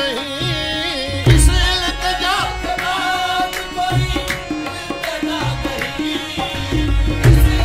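Qawwali music: tabla drumming under a wavering melodic line, with deep bass drum strokes about every three seconds.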